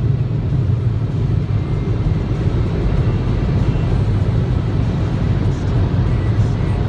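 Steady low rumble heard from inside a car's cabin as the car idles and creeps forward slowly.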